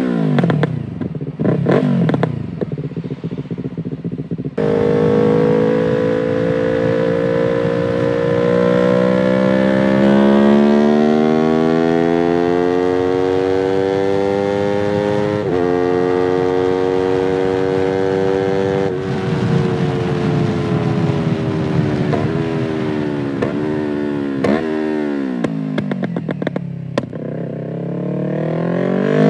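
2020 Yamaha R3's 321 cc parallel-twin engine, first revved in quick blips, then pulling with a slow climb in pitch that breaks briefly about halfway. Its revs then fall with several short blips and drop low, and climb again at the end.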